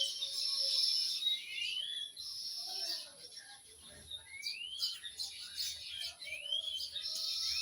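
Songbird chirping, a short rising call repeated every second or two, against a steady high-pitched background.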